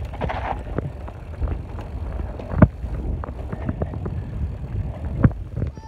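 Mountain bikes riding fast over a rough dirt trail: a steady wind rumble on the microphone with repeated knocks and rattles from the bikes, the loudest about two and a half seconds in and again about five seconds in.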